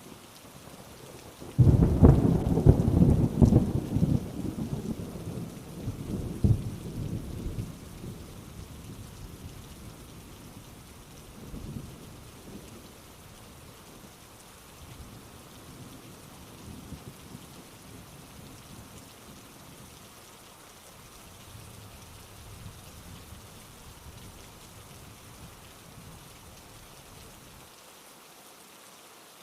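Steady rain with a loud crack of thunder about two seconds in that rolls away over several seconds, followed by fainter rumbles of thunder.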